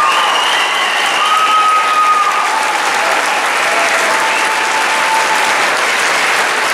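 Audience applauding steadily, with a few long held cheers from the crowd rising over the clapping.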